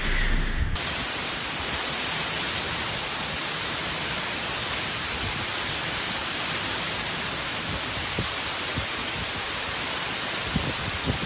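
Steady hiss of heavy tropical-storm rain and wind. Wind buffets the microphone briefly at the start and a few times near the end.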